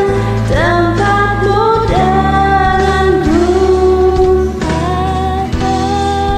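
A singer's voice over a karaoke backing track, holding and sliding between long notes; the singer says the voice has gone off-key from a cough and cold.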